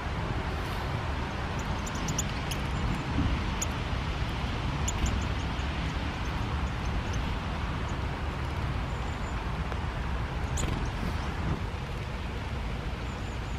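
Steady hiss of rain with a low rumble beneath it. A few short, high bird chirps are scattered through it.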